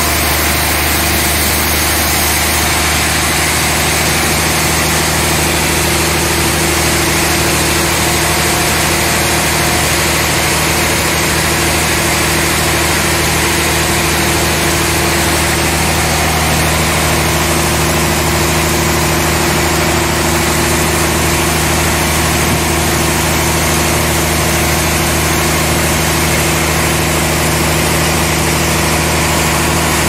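Band sawmill running steadily with a constant mechanical hum, its blade sawing through a large suar (rain tree) log.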